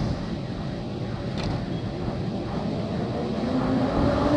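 EP07 electric locomotive pulling away from a stand with its passenger train, a steady rumble that grows louder as it approaches. Near the end a whine comes in and rises in pitch as the locomotive gathers speed.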